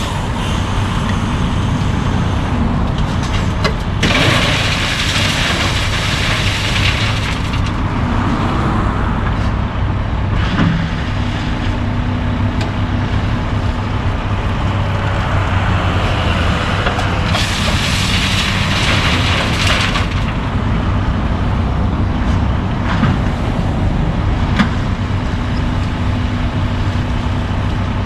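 Diesel engines of a working excavator and idling dump trucks running steadily, with road traffic passing twice in long rising-and-falling rushes of tyre and engine noise. A couple of short knocks come near the end.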